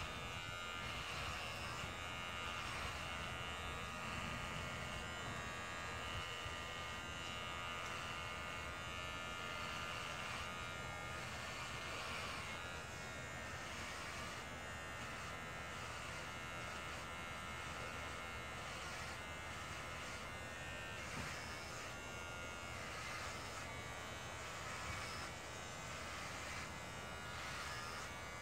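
Electric hair clippers buzzing steadily as they shave a head close, the buzz wavering slightly from stroke to stroke as the blades run through the hair.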